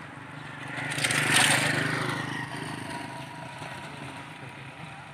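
Approaching HBU-20 diesel-electric locomotive's engine running with a steady low rumble. A loud rushing noise swells about a second in and fades away over the next two seconds.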